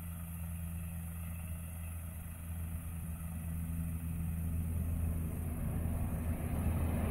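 Road train's big diesel engine running with a deep, steady rumble, growing steadily louder.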